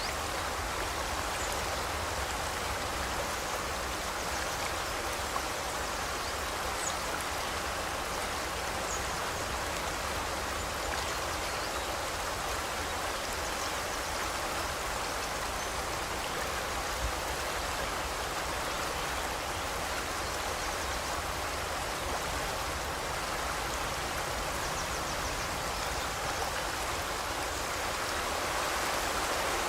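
Forest river flowing: a steady rushing of water, with a few brief, faint high bird chirps.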